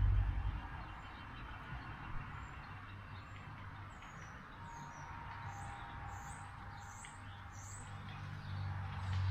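Outdoor ambience: a bird chirps a quick series of short, high notes from about four to seven and a half seconds in, over a steady hiss of background noise. Low rumbles come at the start and again near the end.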